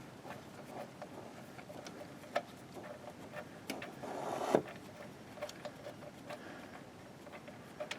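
Faint scattered clicks and light metal scraping as a loosened starter mounting bolt is unthreaded by hand, with a brief louder scrape about four and a half seconds in.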